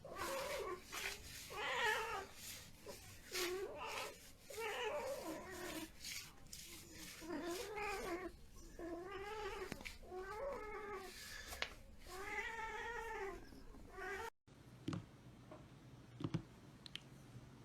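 A domestic cat meowing over and over in long, drawn-out calls, about a dozen in a row. The calls stop abruptly near the end, leaving quiet with a few faint clicks.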